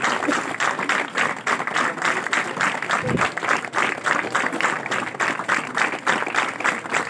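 An audience clapping together in a steady, quick rhythm, about four claps a second.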